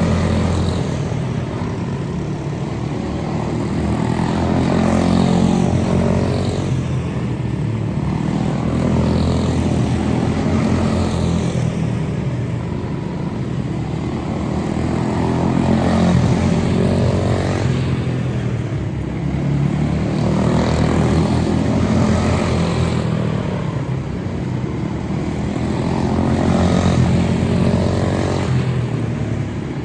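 Quarter midget race cars with single-cylinder Briggs & Stratton Animal engines running laps. The engine pitch rises and falls through the turns, and the sound swells each time the pack comes past, every five or six seconds.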